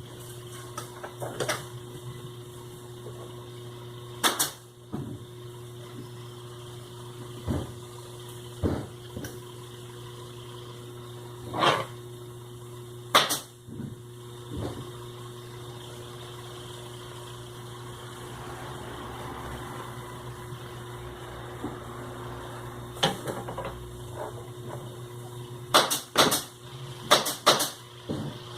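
Metal parts and tools clinking and knocking now and then during a sewing-machine motor repair, about a dozen separate sharp knocks with a quick cluster near the end, over a steady low hum.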